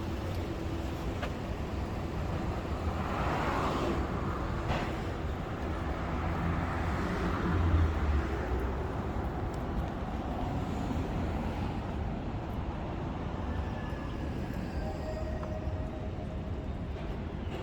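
City street ambience: a steady low rumble of passing traffic, swelling as a vehicle goes by about eight seconds in.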